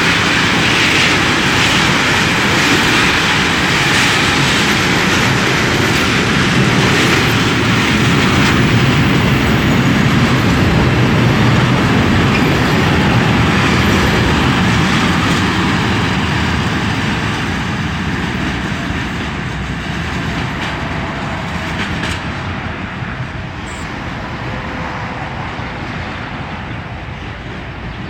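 Freight train wagons rolling past on the rails, a steady noise of wheels on track that gradually fades over the second half as the train moves away.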